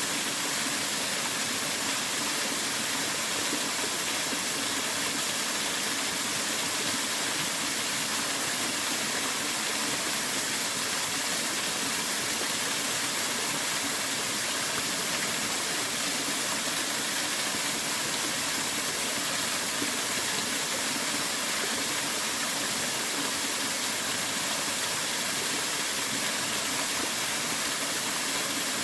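Mountain stream water rushing steadily, an unbroken hiss.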